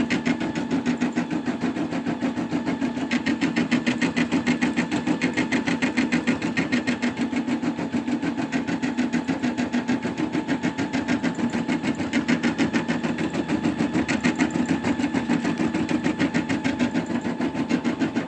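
Brother Innov-is M280D embroidery machine stitching out a design, its needle mechanism running in a fast, steady, even rhythm.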